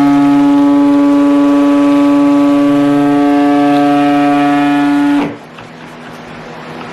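Stick blender running at a steady pitch, mixing lye water into the soap oils, then switched off abruptly about five seconds in.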